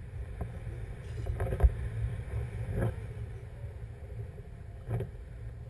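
Wind buffeting the camera microphone in flight under a paraglider: a steady low rumble with a few brief knocks, the sharpest about one and a half seconds in.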